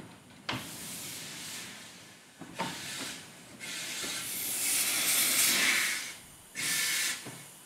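Narrow-gauge steam locomotive moving slowly with its cylinder drain cocks open, blowing off steam in a series of loud hisses. The longest hiss lasts over two seconds, about halfway through.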